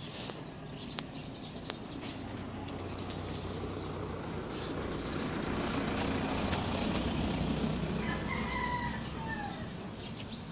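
A low vehicle rumble swells to a peak about six to seven seconds in, then fades as it passes. About eight seconds in comes a single long crowing call that holds level, then falls at its end.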